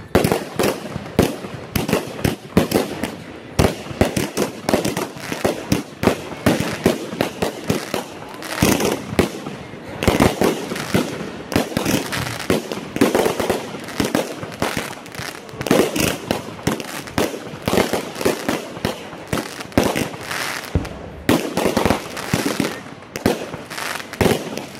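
Fireworks display going off in a rapid, near-continuous run of bangs and crackles, several shells bursting every second.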